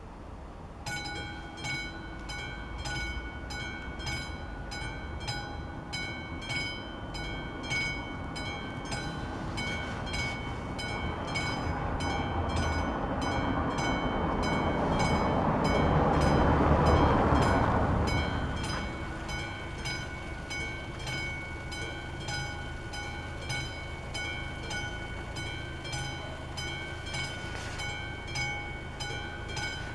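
Level-crossing warning bell of AŽD 71 signals starts ringing about a second in, with steady evenly spaced strokes. A train approaches, rumbles past loudest about halfway through, and fades away while the bell keeps ringing.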